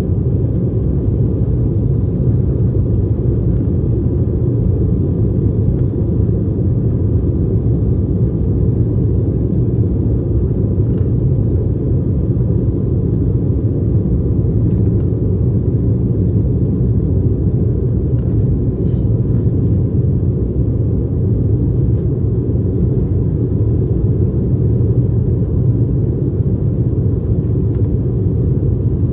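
Steady low rumble inside the cabin of an Embraer E190 climbing after takeoff, from its twin GE CF34-10E6 turbofan engines and the airflow over the airframe, heard from a rear window seat, with a faint steady tone above it.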